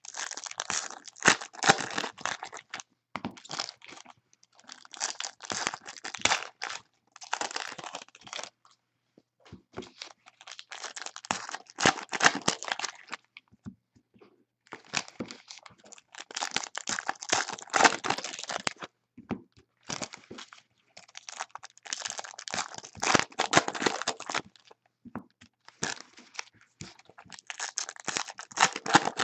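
Trading card pack wrappers being torn open and crinkled by hand, in repeated bursts of rustling separated by short pauses.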